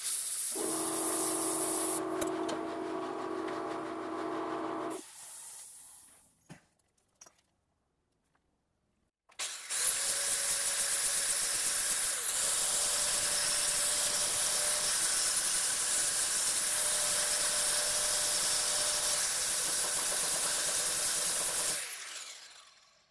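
Compressed-air blow nozzle hissing for about five seconds, blowing on a fresh solder patch to cool it. After a pause, an angle grinder runs for about twelve seconds with a steady high whine, grinding down excess solder on corrugated galvanized tin; its pitch dips briefly as it bears down, and it winds down near the end.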